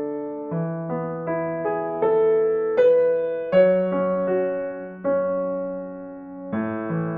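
Background music: slow electric piano chords, each struck and left to ring.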